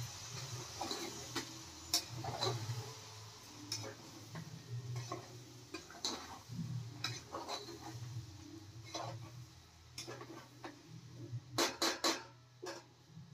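Metal spoon scraping and clinking against the inside of a pressure cooker as leftover rice is mixed into fried vegetables, in irregular strokes. A quick run of sharp clinks comes near the end.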